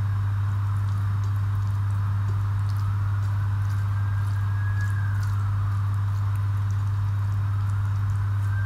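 A strong, steady low hum, with faint soft clicks and squishes of fingers mixing rice and rajma on a plate. In the background a faint tone rises and falls twice, about three seconds in and again near the end.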